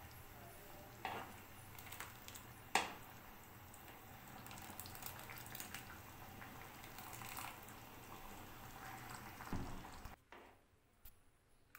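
Metal ladle stirring thick soup in a pan, lifting it and pouring it back with soft splashing and dripping. The ladle clinks against the pan about a second in and again, more sharply, near three seconds, with a soft knock near the end.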